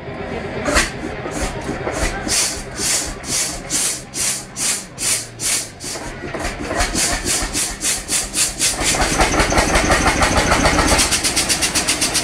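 Bubba UT4 single-cylinder hot-bulb tractor engine starting after its flywheel is swung by hand. It fires in slow, uneven beats at first, then picks up into a quicker, steady beat from about nine seconds in.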